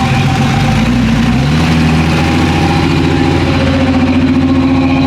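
Vehicle engine running steadily, its pitch rising about a second and a half in as the revs pick up, then holding at the higher speed.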